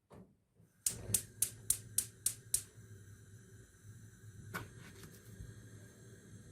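Seven sharp clicks in quick succession, about three or four a second, then a steady low hum with one more click a couple of seconds later.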